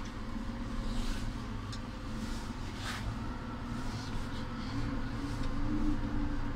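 JCB Fastrac 8330 tractor's six-cylinder diesel running steadily under light load as the tractor creeps forward at walking pace, heard from inside the cab. The engine note rises slightly about five seconds in, with a few light knocks over it.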